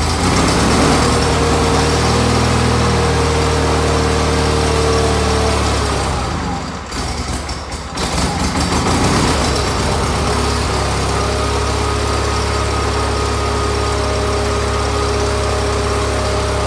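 1989 Wheel Horse 520-H's Onan twin-cylinder engine running just after a cold start: it runs unevenly, falters and nearly dies about six to eight seconds in, then picks up and settles into a steady run. The struggle comes from the cold engine.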